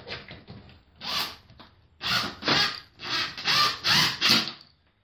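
Power drill driving a wood screw into a plywood boat transom in about six short, harsh bursts. The screw is off center, pulls the transom out and breaks through the wood.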